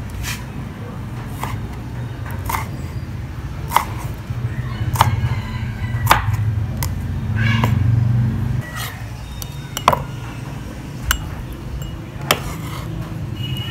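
Kitchen knife chopping through tomato onto a wooden cutting board: single sharp knocks at an even, unhurried pace, about one every second or so.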